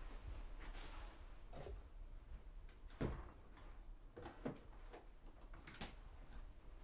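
A few faint, scattered knocks and soft thuds in a quiet room, the loudest about three seconds in.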